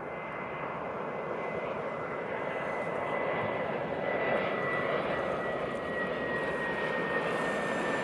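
Jet engines of a British Airways Airbus A320-family airliner on final approach: a steady rush with a thin high whine that drifts slightly lower in pitch as the noise slowly grows louder.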